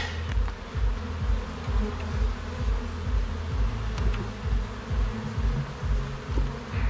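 Honeybees buzzing around an open hive: a steady hum of many bees, over an uneven low rumble.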